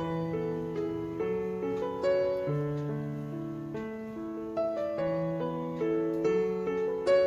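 Gentle background piano music, with soft sustained notes played at a slow, even pace.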